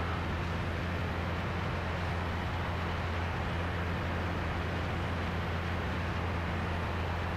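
Steady drone of a Cessna 177RG Cardinal's four-cylinder Lycoming engine and constant-speed propeller heard inside the cabin, at reduced approach power with the propeller set full forward.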